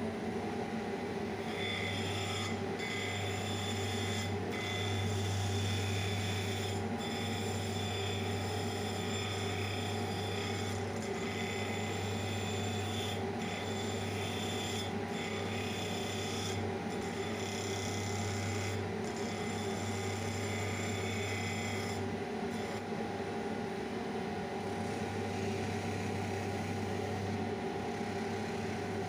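Shoe-repair finishing machine's spindle sanding drums running with a steady motor hum. From about a second and a half in until about three quarters of the way through, a shoe heel is pressed against the abrasive sleeve, rasping with short breaks as it is lifted off. The rasp then stops and the motor runs on.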